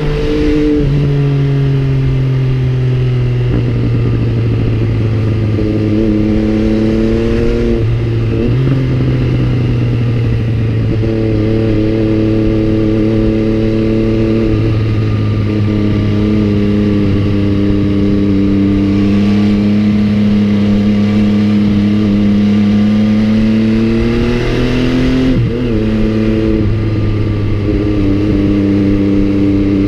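MV Agusta Brutale 800's three-cylinder engine running on the move, recorded from a GoPro on the motorcycle. The engine note holds steady for long stretches and steps or dips in pitch a few times as the revs change, with a brief break about 25 seconds in.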